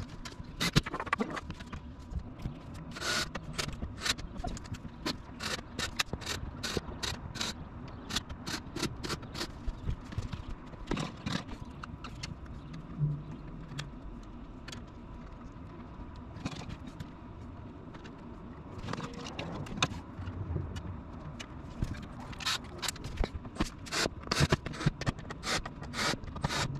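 Plywood bed panels and a metal hinge strip being handled and fitted: irregular knocks, taps and scrapes of wood and metal. These come thick at first, thin out through the middle and pick up again near the end.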